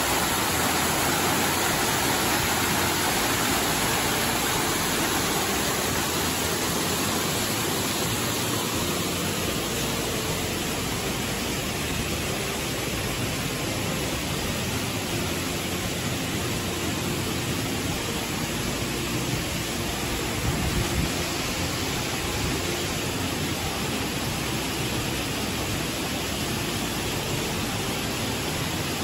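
A waterfall and its cascading creek water rushing steadily, a continuous even wash of noise that eases slightly a little under halfway through.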